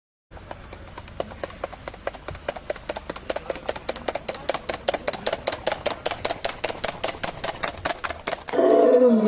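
Horse's hooves striking wet pavement at a gallop, a steady clatter of about four to five hoofbeats a second. Near the end a much louder call with a falling pitch cuts in over it.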